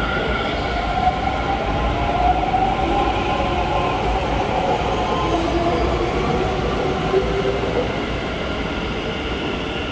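Taoyuan Airport MRT electric trains running through a station, a steady rumble of wheels on rail with the whine of the traction motors gliding in pitch through the middle as they move.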